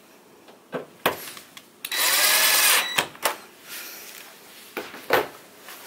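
Power drill-driver running for about a second as it drives in a screw, with a few sharp clicks and knocks of handling before and after.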